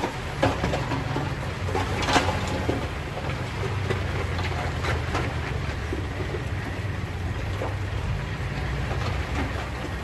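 Dump truck's diesel engine running steadily while its raised bed tips out a load of rock. Rocks knock and clatter as they slide off, loudest about two seconds in.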